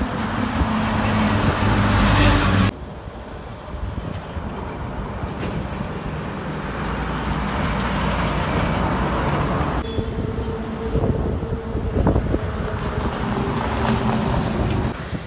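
Heavy diesel lorries passing close by on a highway: engine drone and tyre noise that swell as each truck goes by. The sound drops abruptly about three seconds in and changes again near ten seconds, where new passes begin.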